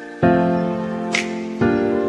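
Background music: slow, sustained chords struck twice, about a second and a half apart, each fading away, with a short sharp click between them.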